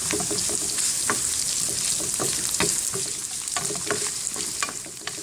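Chopped ginger and garlic sizzling in hot cooking oil in a pan, with a utensil scraping and clicking against the pan many times as it is stirred.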